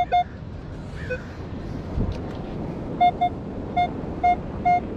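Minelab Equinox metal detector giving short beeps as the coil sweeps over a buried target, at two pitches, pausing for a few seconds and resuming about three seconds in at roughly two beeps a second. A dull thump about two seconds in, over a steady rush of wind and surf.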